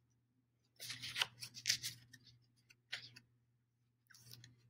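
Dry-erase marker writing on a whiteboard: four short groups of faint rubbing strokes as a short word is written.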